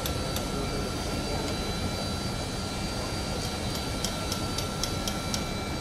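Steady low background rumble with faint scattered camera shutter clicks, which come more often in the second half.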